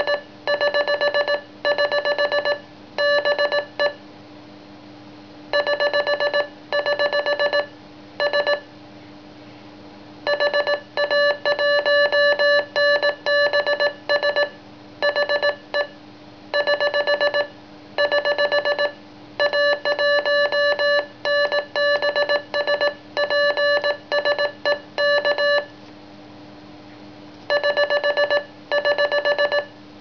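Morse code sidetone from a memory keyer, a buzzy beep keyed on and off in dots and dashes as a CQ call with the callsign HA1NBS is hand-sent on a morse key into the keyer's memory. The characters come in groups with short pauses between them.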